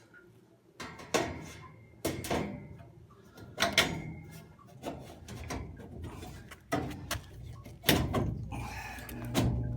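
A series of sharp clunks, knocks and scrapes of hard parts being handled at a home furnace, about one a second. A steady low hum comes in near the end, in keeping with the furnace blower motor running on its new run capacitor.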